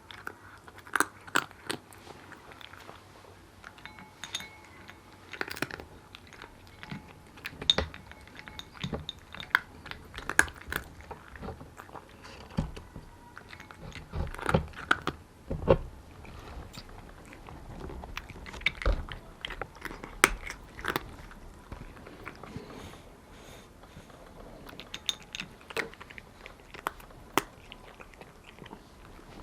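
A cat eating dry food, chewing and crunching kibble in irregular bites with sharp crunches every second or so.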